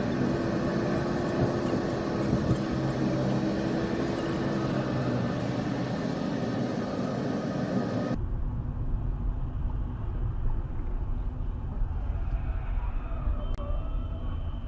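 Road and engine noise of a moving car picked up by a dashcam. About eight seconds in it cuts abruptly to a different recording with a deeper rumbling road noise.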